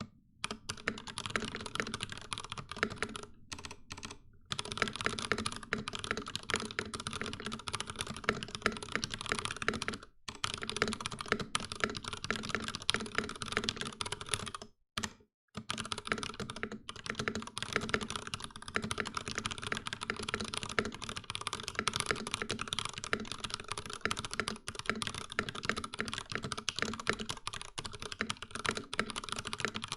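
Fast continuous typing on a Ducky x Varmilo MIYA Pro mechanical keyboard with stock Cherry MX Black linear switches, a dense run of key clacks with brief pauses about three and a half, ten and fifteen seconds in.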